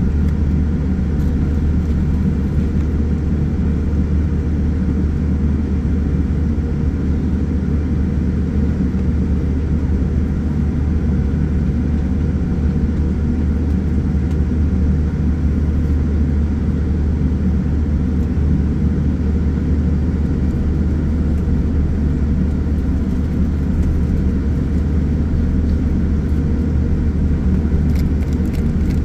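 Steady low rumble of cabin noise inside a Boeing 787-9 airliner taxiing on the ground, its engines at idle, with a steady low hum underneath.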